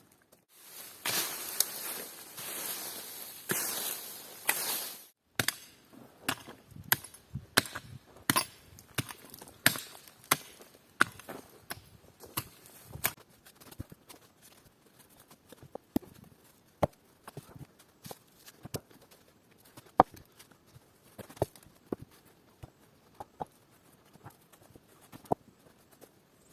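A few seconds of rustling, then a long run of sharp wooden knocks and cracks, irregularly spaced about a half-second to a second apart, one much louder than the rest about twenty seconds in.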